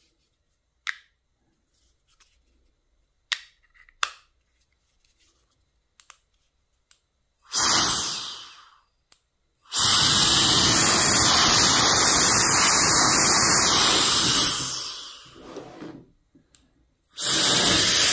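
ROSSGUN 130,000 RPM handheld electric jet turbo fan blowing air in a loud, even rush: a short blast about halfway through, then a long blast of about five seconds that winds down, and another blast starting near the end. A few sharp clicks come before the first blast.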